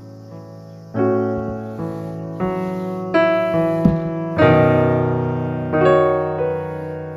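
Background piano music: gentle chords struck about once every second or so, each left to ring and fade, with a brief knock a little before the fourth second.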